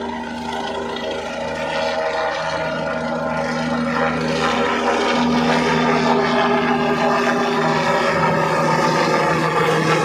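Helicopter flying low overhead, its rotor beat and steady engine whine growing louder over the first several seconds, then holding.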